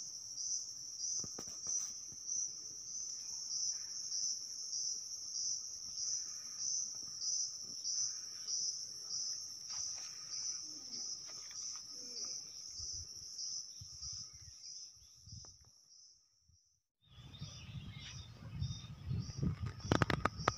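Insect chorus: a high-pitched buzz pulsing in an even rhythm. It cuts off suddenly about sixteen seconds in and, after a second of silence, comes back with a low rumble and a few clicks.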